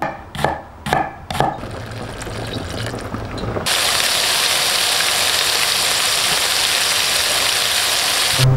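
A few sharp knife strokes slicing a red onion on a wooden chopping board, then, about three and a half seconds in, lamb chops sizzling steadily in hot fat and butter in a frying pan, the sizzle cutting off suddenly near the end.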